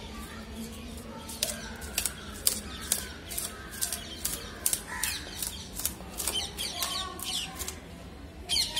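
Knife blade scraping the scales off a black spot snapper on a wooden cutting board, in quick repeated strokes at about two to three a second, each a short, sharp rasp.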